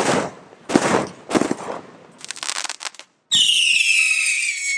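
Ready to Shoot Chronos multi-shot fireworks cake firing: three sharp bangs about two-thirds of a second apart, then a quick volley of rapid shots around two seconds in. Near the end a loud whistle falling in pitch runs for about a second and a half and cuts off suddenly.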